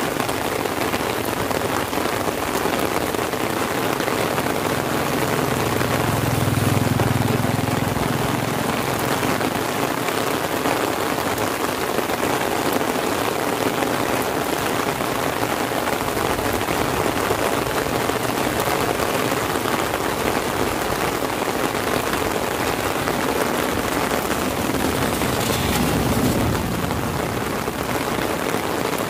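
Heavy rain falling steadily, hitting an umbrella overhead and the paved road, with a brief low rumble about a quarter of the way through and a fainter one near the end.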